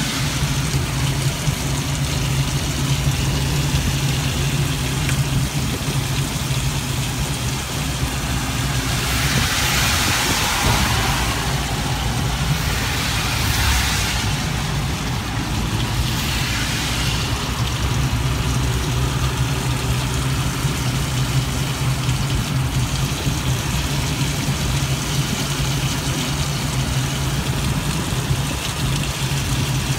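Inside the canopy of an ELF pedal-electric velomobile moving on a wet, slushy road: a steady low hum with an even wet hiss over it. Near the middle, a rushing swish swells up twice, like water spray off tyres.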